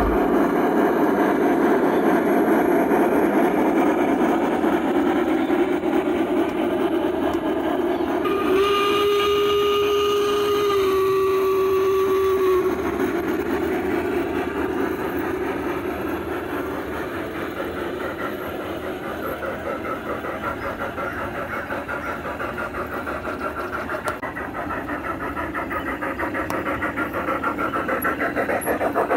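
Large-scale model steam locomotive running steadily along the track. Its whistle sounds once, for about four seconds, starting about eight seconds in, and drops slightly in pitch partway through.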